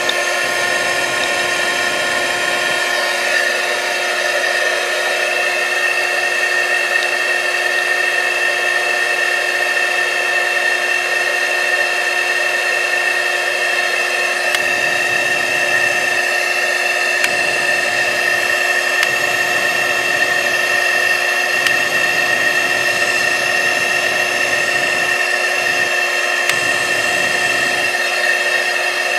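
A small electric blower runs with a steady whine, with a higher tone joining about five seconds in; it is drawing gas through a charcoal gasifier for a test flare before the engine is started.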